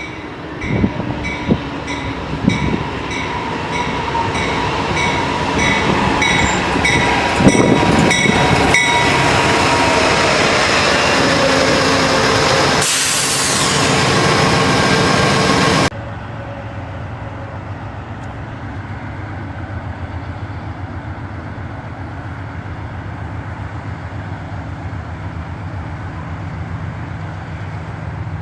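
Train passing close, with regular wheel clicks over the rail joints about twice a second, growing louder. About halfway through it cuts off abruptly to a quieter steady low rumble.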